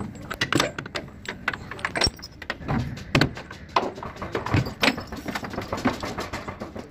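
A heavy chain rattling and clanking against the steel latch of a truck's side gate: an irregular run of metal clinks and knocks.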